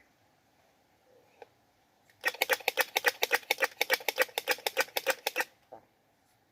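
A squirrel giving its mating call: a rapid rattling chatter of sharp chirps, about ten a second, lasting some three seconds and then stopping abruptly.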